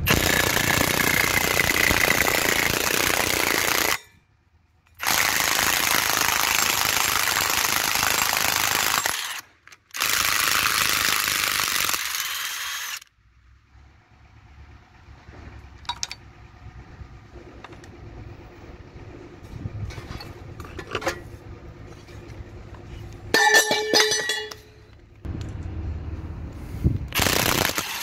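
Brushless cordless impact wrench hammering in three bursts, about four, four and two seconds long, breaking loose a rusted nut. After that, quieter scattered clicks and a short metallic rattle.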